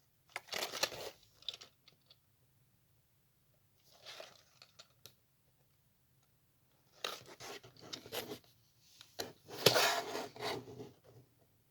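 Handling noise in four bursts of scratchy rustling and scraping, as small LEGO sets and their packaging are picked up and moved about.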